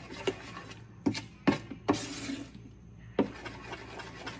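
Metal spoon stirring thick batter in a metal pan, clinking sharply against the side about five times, with a short scrape about two seconds in.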